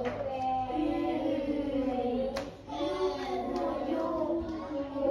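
A voice drawing out phonics speed sounds one after another, the long 'oo' and then 'ure' as the flash cards are shown, with a sharp card flick between them.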